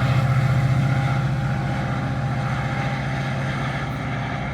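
Train locomotive running with a steady low hum and a fast even throb, slowly fading as it moves away.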